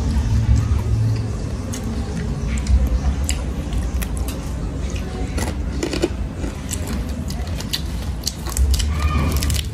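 Close-up eating and food-handling sounds: scattered small clicks and crackles as fingers pick at a piece of meat and handle lettuce, over a steady low rumble.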